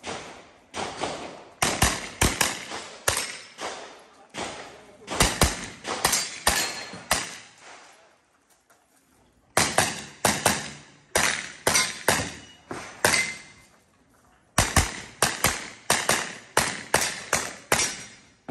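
Pistol-caliber carbine firing rapid strings of shots, many in quick pairs, each shot echoing briefly off the range walls; the firing stops twice for about a second, roughly halfway through and again about three-quarters of the way in.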